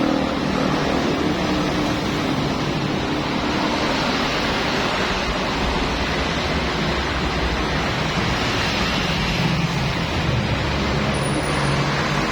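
Pressure-washer machine running steadily: a low motor hum under a loud, even hiss of spray.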